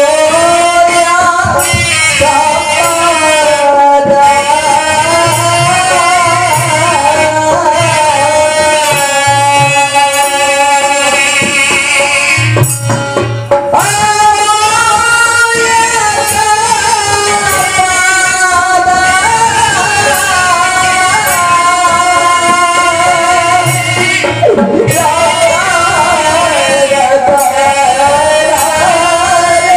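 Live Odia folk-theatre music: a sorrowful song sung with harmonium, clarinet and drum accompaniment, the melody wavering and ornamented, with drum strokes here and there.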